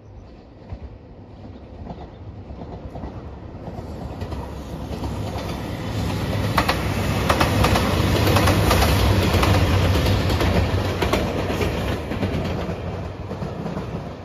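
JR Shikoku 2700 series diesel limited express train passing close by. Its diesel engines run and its wheels clack over rail joints, building up as it approaches, loudest over the middle of the passage, then fading as it moves off.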